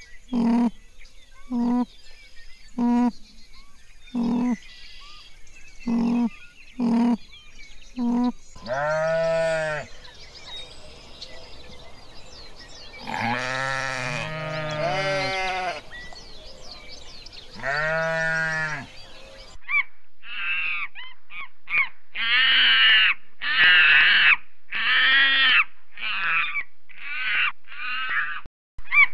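A sequence of animal calls. It opens with short, evenly spaced low calls about once a second. Then come sheep bleats: one long bleat, a cluster of overlapping bleats, and another long one. Near the end there is a quick run of high-pitched calls.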